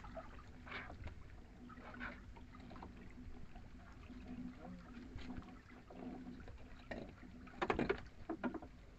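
Water and wind around a small boat at sea under a faint steady hum, with soft rustles and knocks from a wet lobster net being hauled over the gunwale and picked through by hand. A louder burst of clattering handling comes near the end.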